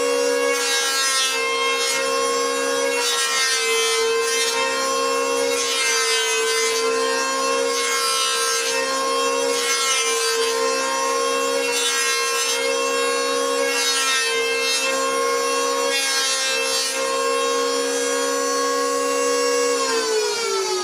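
Electric wood planer running with a steady high whine, its cutters rasping through wood in repeated passes every second or two. Near the end the whine begins to drop in pitch as the motor winds down.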